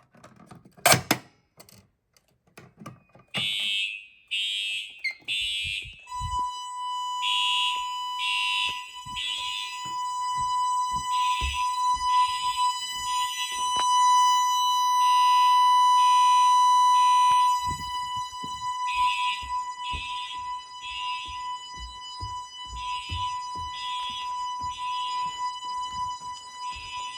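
Fire alarm horns sounding in a temporal-three pattern, three short blasts then a pause, repeating, which is the evacuation signal. A steady high tone joins about six seconds in. There is a sharp knock about a second in, and a run of low clicks from about halfway.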